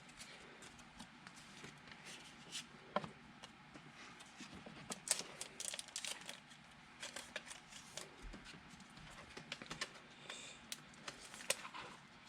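Faint handling of trading cards and pack wrappers: scattered light clicks and rustles.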